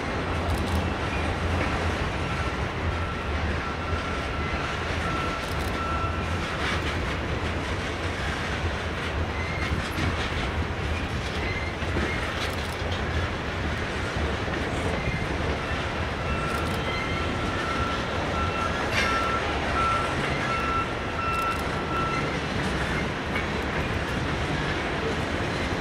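Freight train cars rolling past at steady speed: a continuous rumble with scattered wheel clicks over the rail joints. A thin, high wheel squeal comes twice, for several seconds each time, early on and again in the second half.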